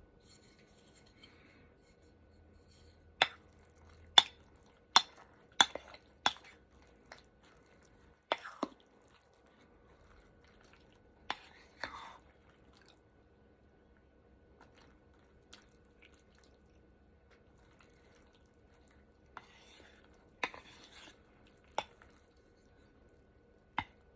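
Eating utensils clinking against dishes: a quick run of sharp, ringing clinks about three to nine seconds in, then a few more spread out later, with quiet chewing between.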